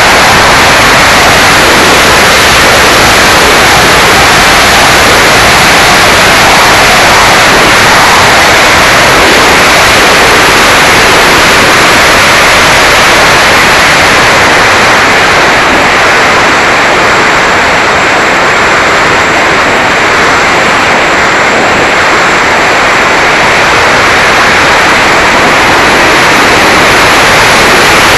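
Loud, steady rush of wind and propeller noise on the microphone of an action camera carried aboard a Mini Talon RC plane in flight. The high hiss eases for several seconds about midway, then comes back.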